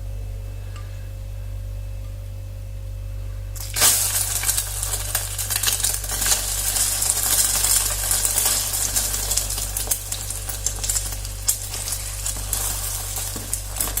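Slices of egg-soaked bread dropped into hot sunflower oil in a frying pan: about four seconds in a loud sizzle starts suddenly and carries on as steady frying with many sharp crackles and spits. A low steady hum sits underneath throughout.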